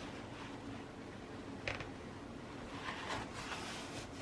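Faint handling sounds of a rolled leather journal with parchment-like pages: a light click about one and a half seconds in, then soft paper rustling near the end.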